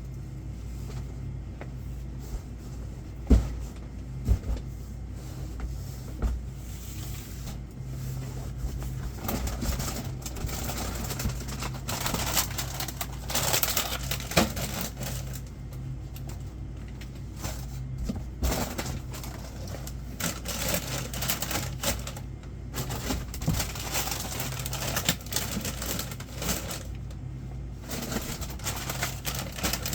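Stock being unpacked and shelved: packaging rustling and goods clicking and knocking against each other in irregular bursts, with a sharp knock about three seconds in, over a steady low electrical hum.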